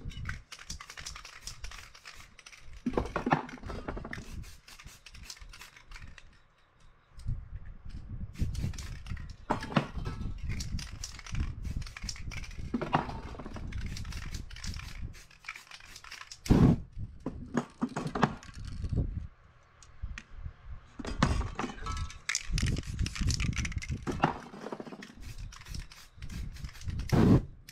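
A stencil sheet rustling and crinkling as it is moved and pressed flat by hand, with bursts of hissing from an aerosol spray-paint can sprayed over it.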